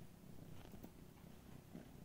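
Domestic cat purring faintly, a low steady rumble, with a few soft clicks.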